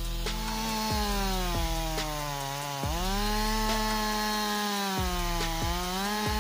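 Petrol chainsaw running at full throttle while cutting through a hardwood log. Its pitch sags and recovers a few times as the chain bites, with a sharp dip about three seconds in.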